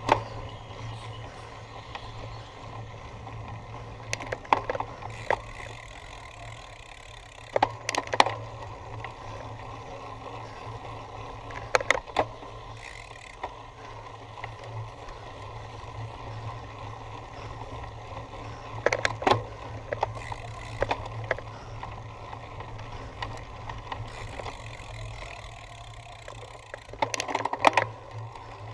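Cyclocross bike ridden over rough ground: a steady rolling noise broken every few seconds by short bursts of loud rattling as the bike jolts over bumps.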